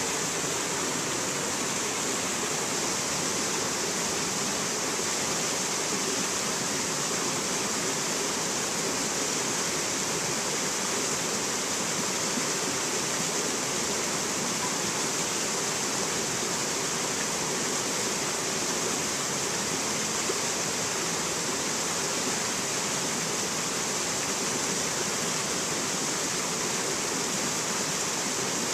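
Rocky stream cascading over boulders: a steady, unbroken rush of water.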